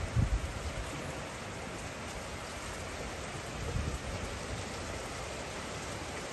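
Steady rain-like hiss with a couple of brief low thumps, one just after the start and one about four seconds in.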